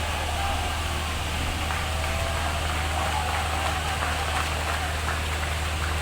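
Komatsu D65 bulldozer's diesel engine running steadily: a low, even hum with a faint wavering whine above it.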